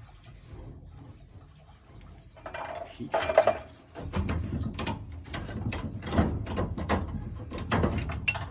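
Hand tools working copper water pipe: a burst of metallic scraping about two and a half seconds in, then a run of quick scraping and clicking strokes through the last four seconds.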